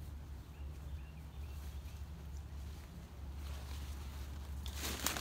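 Quiet outdoor ambience: a steady low rumble, a few faint high chirps, and a brief rustle near the end.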